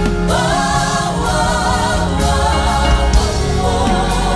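Live gospel music: a woman's lead voice sings a long wavering line, entering with a rising slide just after the start, over a band of drums, bass guitar and keyboard.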